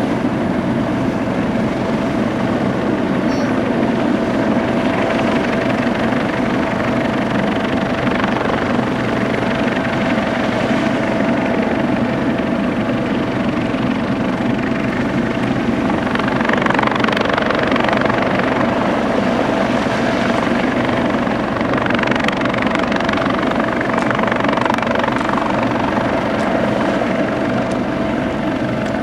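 Airbus AS365N3 Dauphin twin-turboshaft helicopter in flight: a steady rotor and turbine sound with a constant whine, swelling louder a little past halfway and again near the end.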